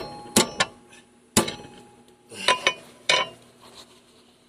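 Hammer blows on a piece of hot steel clamped in a bench vise to bend it: about seven sharp metallic strikes, some in quick pairs, each leaving a short ring, with the blows ending after about three and a half seconds.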